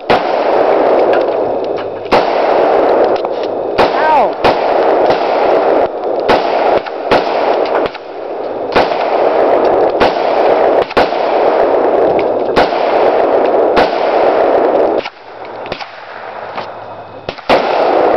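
Repeated gunfire: about two dozen shots, irregularly spaced, from 9mm pistols and other guns on the firing line. A steady rushing noise runs between the shots and drops away for a couple of seconds about fifteen seconds in.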